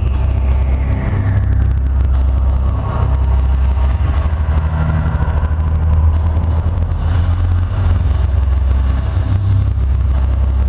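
Outdoor loudspeaker soundtrack of a projection-mapping show: a loud, steady, deep rumble, with a falling whooshing tone near the start.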